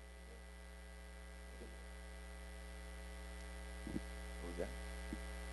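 Steady electrical mains hum with its even overtones, heard faintly through the microphone and sound system, with a few faint short sounds in the second half.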